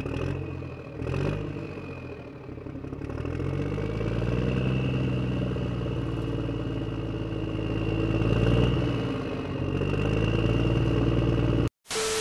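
Truck engine running and revving up and down a few times, with a steady high whine over it.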